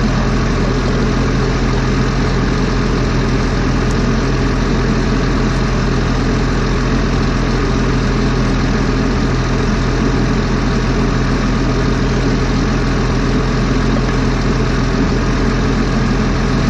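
Heavy forestry machine's diesel engine idling steadily with an even low hum.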